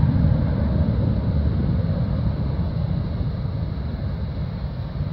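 Bombardier Global 5000 business jet's twin Rolls-Royce BR710 turbofans rumbling as it climbs away after takeoff, fading slowly as it recedes.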